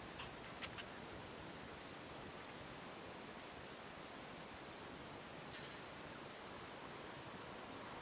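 A small bird chirping in short, high calls every second or so over steady outdoor background hiss, with a couple of light clicks in the first second.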